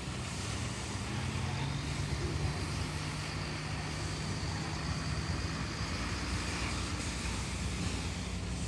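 1991 International asphalt patch truck's engine running steadily as the truck drives away across gravel and turns.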